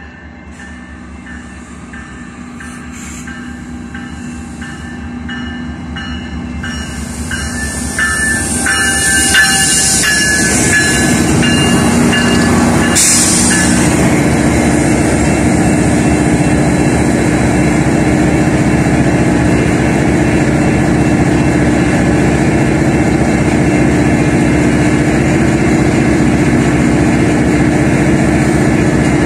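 GO Transit MP40PH-3C diesel locomotive arriving, growing louder over the first nine seconds as it comes up alongside, then a loud, steady engine rumble with a low hum. A regular ringing repeats for about the first ten seconds, with high hissing and squealing while the train slows and a short burst of hiss about thirteen seconds in.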